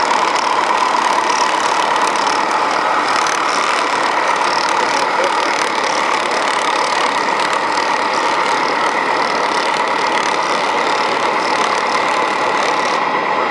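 Steady idling truck-engine sound from a radio-controlled model truck, with a constant high whine over it and faint voices in the background.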